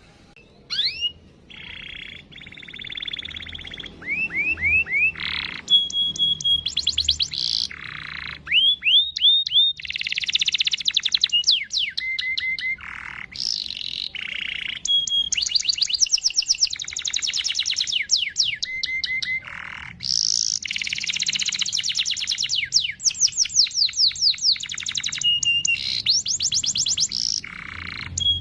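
Domestic canary singing a long, varied song of rapid rolling trills, quick chirps and short whistled notes, with only brief pauses between phrases.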